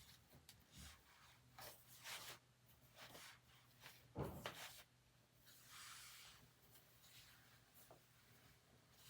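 Faint rustling and handling noises of hair being gathered up into a bun, with one soft thump about four seconds in.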